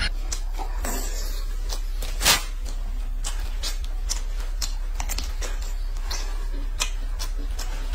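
Eating sounds: irregular crisp clicks of biting and chewing on crispy fried food, with one louder crunch a little over two seconds in, over a steady low hum.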